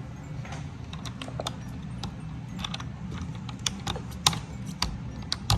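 Irregular light plastic clicks and rattles of robot vacuum parts being handled and fitted together, with a few sharper, louder clicks near the end as a part snaps into place. A steady low hum runs underneath.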